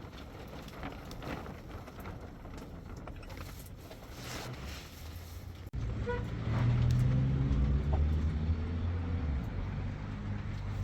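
A vehicle engine running with a steady low rumble, cutting in abruptly a little past halfway. Before it there is a stretch of even, hissy noise with faint rustles.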